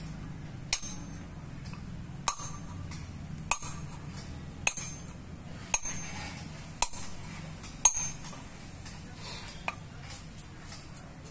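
Small pointed hammer pecking a flat stone grinding slab (sil) to re-roughen its grinding face. Seven sharp clinking taps come about one a second, each with a brief metallic ring, then a couple of fainter taps near the end.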